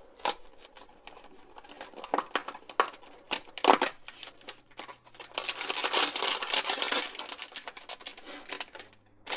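A small cardboard snack box being torn open, with sharp scattered tearing clicks. Then a plastic inner wrapper crinkles as it is pulled out of the box, loudest about six to seven seconds in.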